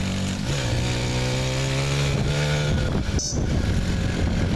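Motorcycle engine running while being ridden. Its note drops about half a second in and shifts again a little before three seconds in, with a brief clatter just after.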